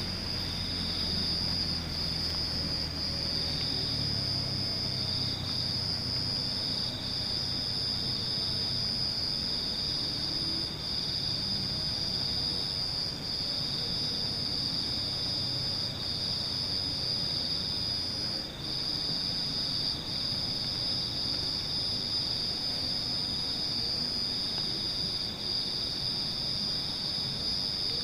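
Steady chorus of night insects such as crickets: an unbroken high-pitched trill that dips briefly now and then. A low hum underneath fades away over the first few seconds.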